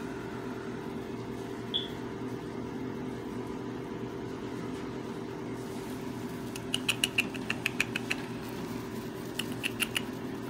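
A run of about ten quick, sharp clicks about two-thirds of the way through and four more near the end, over a steady low hum.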